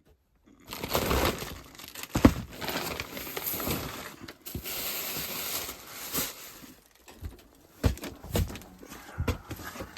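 Rustling, crinkling noise with many knocks and clicks through it, easing after about seven seconds into scattered separate clicks and taps.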